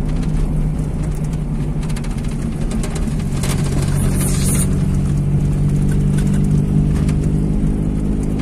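Vehicle engine running steadily while driving over a rough dirt road, heard from inside the cabin, with road noise and scattered knocks from the bumps.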